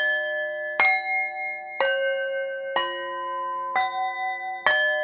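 Bell tones struck about once a second, six strikes in all, each ringing on with several overtones. The notes change from strike to strike in a slow, even meditation-music pattern.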